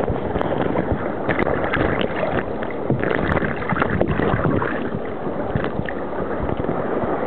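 Rushing river rapid water splashing against a canoe's bow and over the camera: a steady noisy wash with small crackles of spray throughout.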